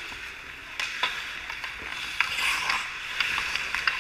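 Hockey skates scraping and carving on the ice, with a louder scrape about two and a half seconds in, and several sharp clicks of sticks and puck.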